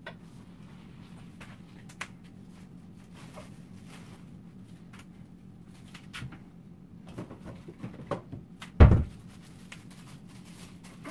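Light household clicks and knocks, then a door shutting with a loud thump about nine seconds in.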